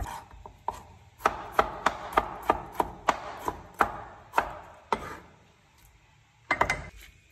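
Kitchen knife chopping on a wooden cutting board: a steady run of about a dozen sharp strokes, roughly three a second. A short clatter near the end comes as the chopped pieces are pushed off the blade into a stone mortar.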